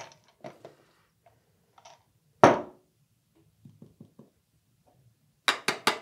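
Hand coffee grinder and its catch jars being handled and set down on a countertop: one solid knock about halfway through, a few faint ticks, then four quick sharp clicks near the end.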